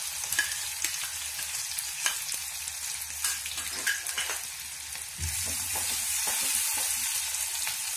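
Chopped onion, garlic, ginger and green chilli sizzling as they hit hot oil tempered with cumin and mustard seeds in a kadhai, with scattered small clicks as the spoon stirs. The frying hiss grows stronger about five seconds in.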